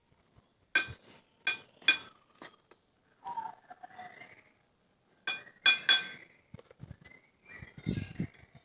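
Sharp ringing clinks of tableware, like a spoon struck on a plate or glass, in two quick groups of three, with a short falling cry between them.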